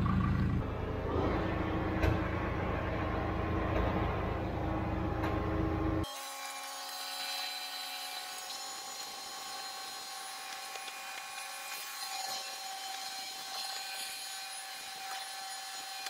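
Diesel engine of the heavy equipment running with a steady low rumble. About six seconds in, this cuts off suddenly to a quieter, thin, hissy mechanical sound with a steady whine and no low rumble.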